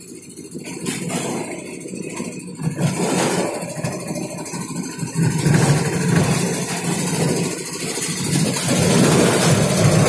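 Auto-rickshaw engine running steadily as the three-wheeler drives along, with rattling road noise, getting louder from about halfway through.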